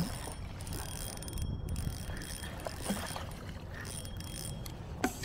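Spinning fishing reel being cranked to bring in a hooked fish, with scattered light clicks over a steady low rumble of handling noise.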